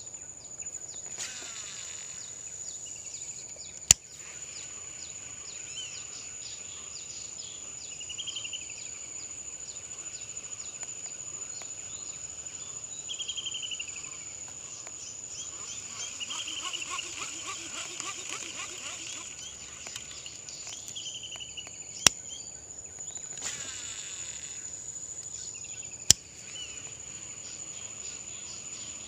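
A steady, high-pitched insect drone, with other trilled chirping calls coming and going. It is broken three times by a sharp click.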